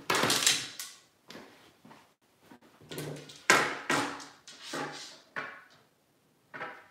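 Handling noise as the camera is carried to the workbench and steel golf shafts are picked up: a string of knocks, rustles and thuds. The loudest comes in the first second, with a sharp knock about three and a half seconds in.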